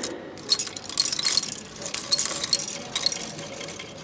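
Coins being fed into a railway ticket machine's coin slot, clinking and rattling down through the coin mechanism as a rapid run of metallic clinks that lasts about two and a half seconds.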